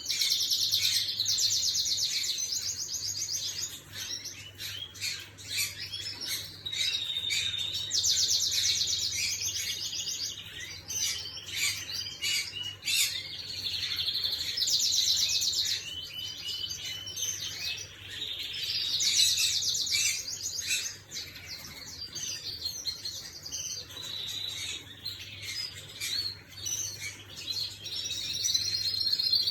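Red-factor canary singing: phrases of fast rolling trills, each lasting two to three seconds, repeated several times with short scattered chirps in between.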